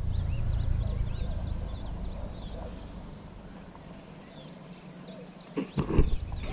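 Small birds chirping, with many short quick calls. A low rumble dies away partway through, and a few knocks come near the end.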